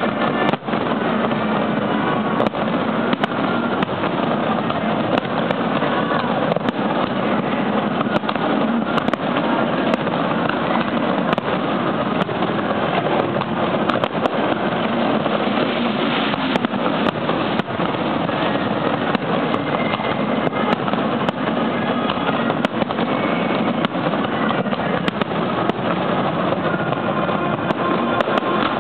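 Fireworks display: a dense, continuous barrage of bangs and crackles with no letup.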